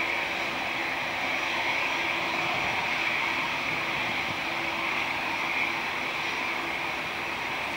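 Boeing 757-200 airliner's twin jet engines at takeoff power as it climbs away just after lift-off: a steady rushing jet noise with a low hum underneath.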